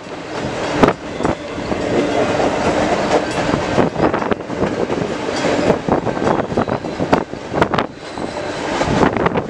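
CN intermodal freight train's container well cars rolling past, their steel wheels clacking irregularly over the rail joints above a steady rumble.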